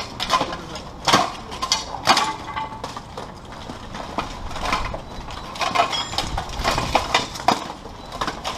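Steel plate armour clanking and knocking as two armoured fighters grapple and strike each other: a run of irregular sharp metal knocks, the loudest about one and two seconds in.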